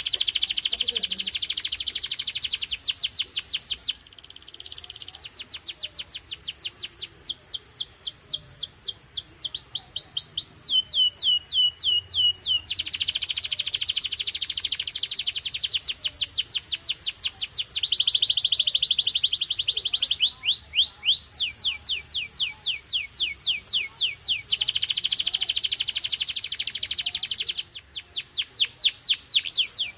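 Canary singing a long song of fast trills: runs of rapidly repeated high notes, each run lasting a few seconds before switching to a new note type, with louder, denser rolling stretches in the middle and near the end.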